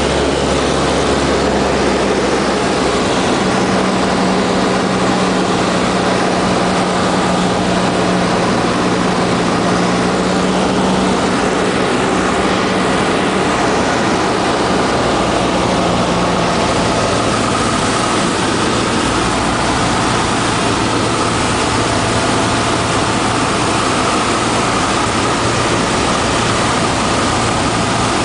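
Single-engine light aircraft's piston engine and propeller droning steadily inside the cabin, with rushing airflow, on approach to land. The tone of the drone shifts slightly about two-thirds of the way through.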